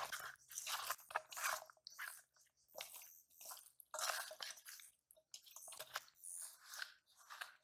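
Bare hands mixing and squeezing fish heads with ground spices in a stainless steel bowl, in short irregular bursts of rubbing and squeezing.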